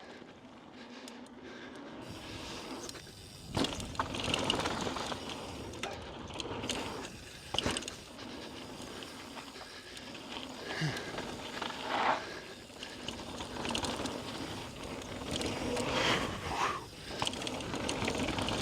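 Mountain bike descending a rough dirt trail: the rear hub's freewheel ticking as it coasts, with tyre noise on the dirt. Several sharp knocks come as the bike hits bumps.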